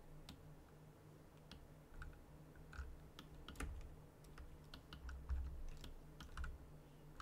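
Faint, irregular clicking and tapping of a computer keyboard and mouse being worked at a desk, over a low steady hum.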